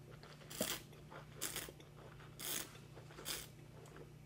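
Four short, airy mouth and breath noises about a second apart, made by a wine taster working a mouthful of white wine.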